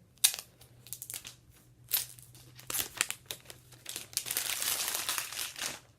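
Plastic shrink-wrap on an iPhone X box being torn and peeled off: a run of sharp crinkles and crackles, then a sustained rip lasting nearly two seconds, starting about four seconds in.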